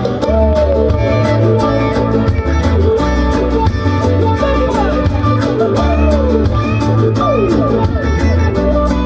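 Live band music with no singing: a pounding bass, drums with a steady hi-hat beat, and a lead line sliding up and down in pitch.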